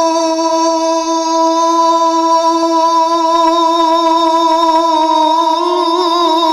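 A man's voice holding one long sung note on 'Allah' in Sufi devotional singing, steady in pitch and wavering slightly near the end.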